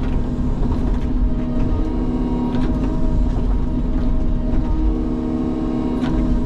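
Diesel engine of a Sany tracked excavator running steadily with its hydraulics working, a constant droning note, with a couple of sharp knocks, one a couple of seconds in and one near the end.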